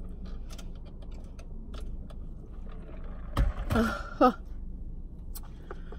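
Close-miked eating sounds: small clicks and crackles of chewing and handling food over a steady low hum, with a brief vocal sound and a sharp click about three and a half to four seconds in.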